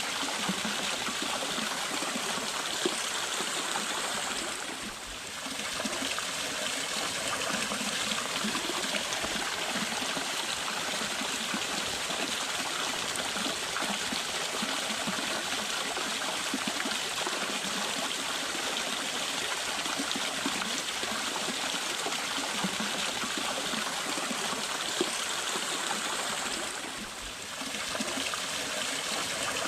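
Stream water flowing at a waterfall, a steady wash of water noise. The level dips briefly about five seconds in and again near the end.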